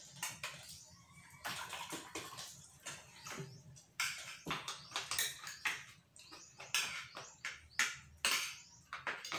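Cutlery clinking and scraping on plates as several people eat, in quick irregular clicks and short scrapes.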